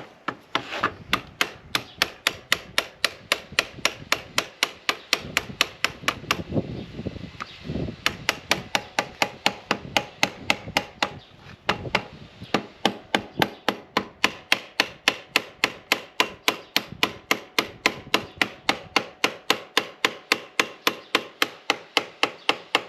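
A hammer striking again and again, about three to four blows a second with a short break partway, driving a motorcycle's triple tree down onto its forks and steering stem. Near the end the ring of the blows changes as the triple tree seats fully.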